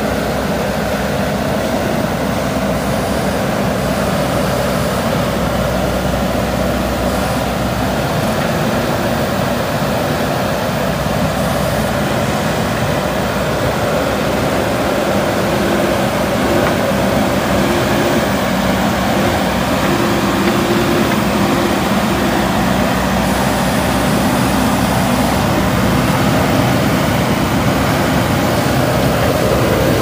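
JCB backhoe loader's diesel engine running steadily under working load close by, getting a little louder near the end.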